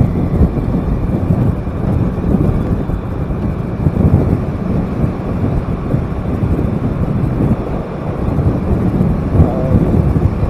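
Ride noise from a small motorcycle in motion: its engine and the rush of passing air make a dense, steady low rumble.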